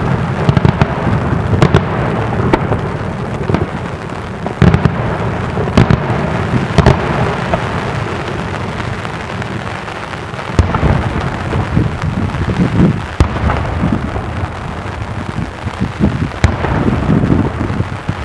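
Daytime aerial firework shells bursting overhead: a string of sharp, echoing bangs over a continuous low rumble, with a brief lull in the middle before the bangs pick up again.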